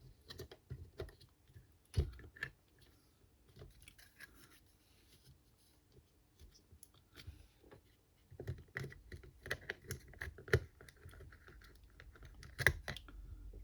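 Irregular clicks, taps and scrapes of hard plastic cordless-screwdriver parts being handled and pressed together. A sharper knock comes about two seconds in and another near the end, with a busy run of clicks in the latter half.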